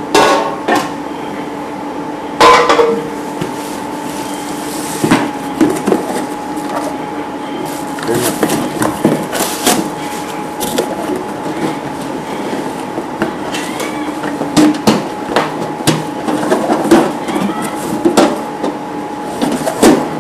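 Black sheet-metal amplifier case being handled and lifted out of its cardboard box: knocks and clatter of metal and cardboard, two loud knocks near the start and a busier run of taps and rattles in the second half, over a steady background hum.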